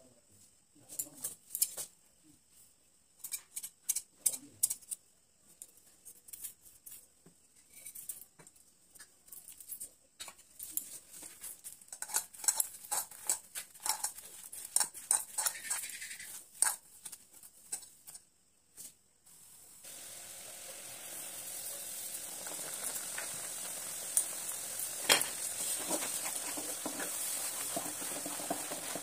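Hands mashing boiled potatoes with spices in a steel bowl: irregular clicks and taps against the bowl. From about 20 seconds in, a steady sizzle as a wet semolina mixture cooks in a pan and is stirred with a wooden spatula, with scattered scraping ticks.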